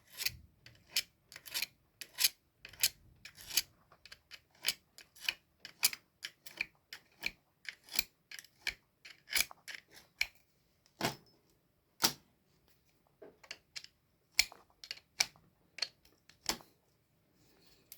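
Sharp metal-on-metal clicks and taps from tools working on a bicycle's crank and bottom-bracket parts as they are taken apart, irregular, a few a second, stopping shortly before the end.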